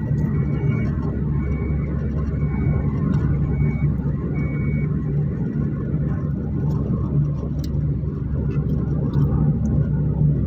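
Car engine and tyre noise heard from inside the cabin while driving at a steady speed: a steady low drone.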